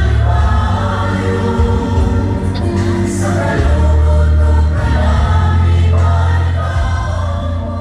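Background music: a choral-style track with voices singing over a deep, steady bass, easing off slightly near the end.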